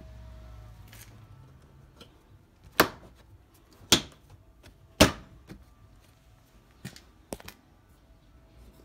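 Plastic front bumper corner of a Suzuki Wagon R pressed by hand into its clips at the fender: three loud snaps about a second apart, then a few fainter clicks near the end.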